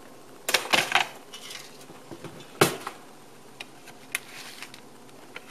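Clatter of a ceramic plate being handled on a counter: three quick knocks in the first second, the loudest clack about two and a half seconds in, then a few lighter taps.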